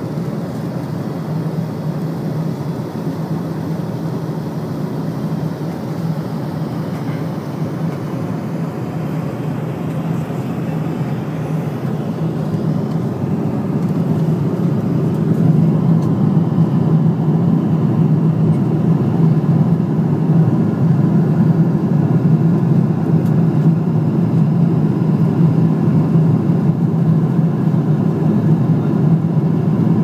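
Steady low-pitched cabin noise of an airliner in cruising flight: engine and airflow rumble with no breaks. It grows a little louder about halfway through.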